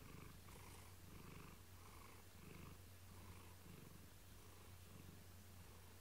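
Domestic cat purring faintly close to the microphone, in an even rhythm of soft pulses a little under two a second.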